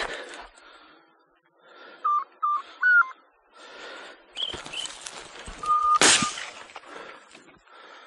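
Dry grass and brush swishing and crackling against a hunter's legs and shotgun as he pushes through tall dead vegetation, with footfalls and a louder swish about six seconds in. A few short, steady high beeps sound around two to three seconds in and once more near six seconds.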